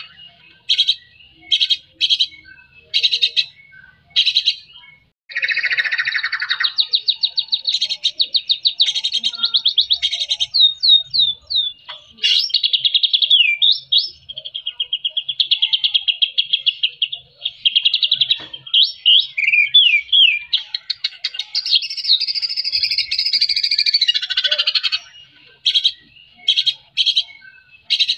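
Male white-rumped shama singing: a few short separate phrases, then about twenty seconds of unbroken fast song full of rapid trills and quick sweeping whistles, then short phrases again near the end.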